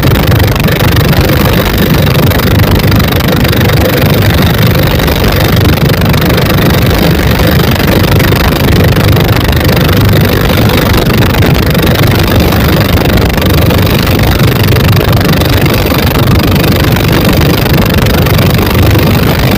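Twin 24 HP dompeng single-cylinder diesel engines of a wooden boat running steadily and loudly, with no change in pace.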